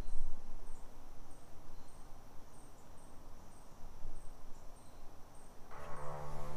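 Insects chirping outdoors, a short high chirp about twice a second over faint background noise. Near the end, music starts playing from the jet ski's newly installed BRP premium audio speakers, a first power-on test of the system.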